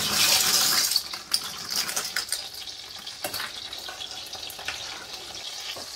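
Dry pasta going into a steel pot of boiling water, with a loud hiss for about the first second. A spoon then stirs the pasta, clicking lightly against the pot, over a faint sizzle of melted butter and oil in a frying pan.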